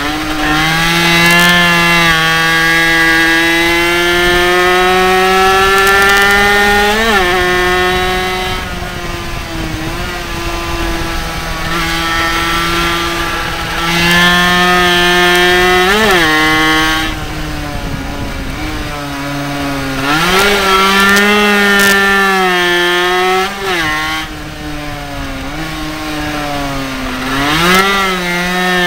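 Mini bike engine running at high revs on the track, its pitch climbing slowly along the straights, then dropping sharply several times with quick rev blips as the rider shifts down and rolls off for corners.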